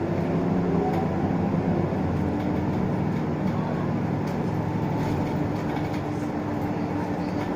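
Isuzu Erga city bus's diesel engine running steadily, heard from inside the passenger cabin as a low, even hum with rattle and road noise.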